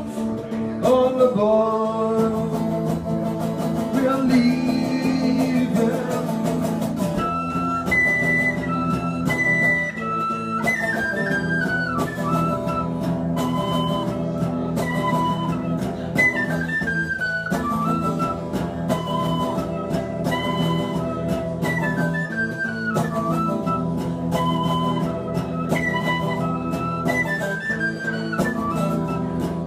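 Tin whistle playing an instrumental melody over guitar accompaniment. The whistle line comes in about seven seconds in, with quick falling runs of notes repeated through the passage.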